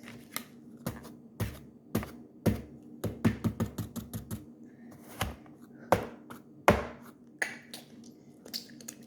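Light taps and clicks of plastic kinetic-sand tools and molds being handled and knocked against the tray. The knocks come irregularly, about one every half second, with a quick run of them about three to four and a half seconds in.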